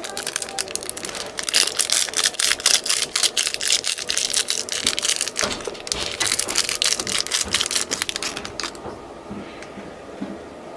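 Slime being squeezed and worked by hand, giving off a rapid run of crackling clicks and pops that stops near the end.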